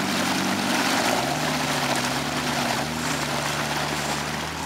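Jeep Cherokee XJ's diesel engine running under load as the vehicle crawls through a muddy creek bed. The engine note drops at the start and climbs about a second in, over a steady rushing noise.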